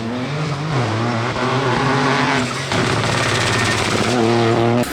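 Peugeot 208 Rally4's turbocharged three-cylinder engine under hard driving, revs rising and falling between gear changes over loud tyre and road noise. The sound cuts off abruptly near the end.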